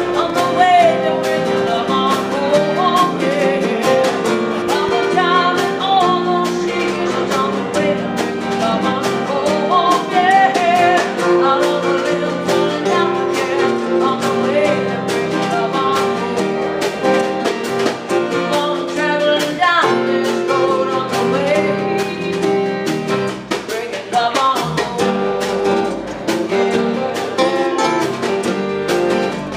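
Live band playing a song: a woman singing over strummed acoustic guitars and electric bass, with a steady percussion beat.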